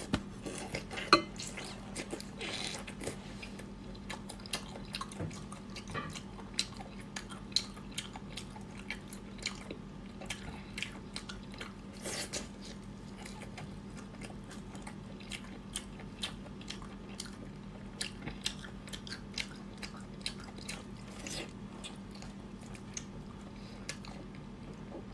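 Close-up eating sounds of a person biting and chewing whole octopus tentacles in spicy sauce: many short wet clicks from the mouth, the loudest about a second in, over a steady low hum.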